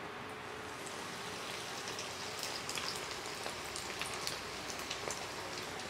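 Breadcrumb-coated egg finger deep-frying in hot oil: a steady sizzle full of quick popping crackles, getting busier about two seconds in.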